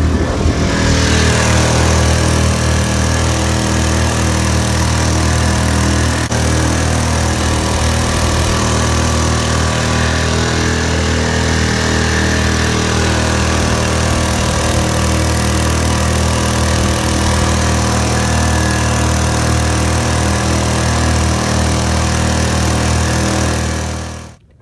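Small boat's outboard motor running at a steady speed while underway, with water rushing along the hull. The engine note holds even and fades out just before the end.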